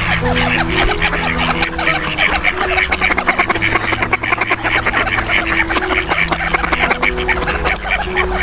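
Ducks quacking rapidly and continuously, many calls overlapping as from a flock.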